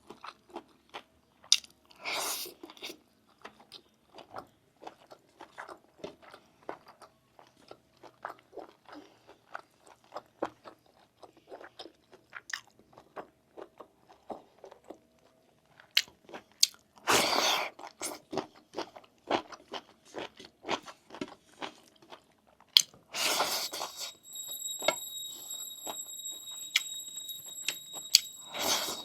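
Close-up chewing and biting of lamb meat, with many small wet clicks and smacks and a few louder, longer noisy bursts.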